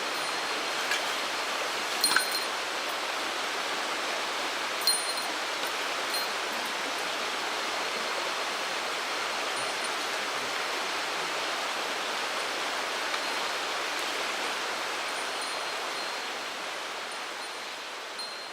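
Mountain stream water rushing steadily, with a few sharp clicks, fading out near the end.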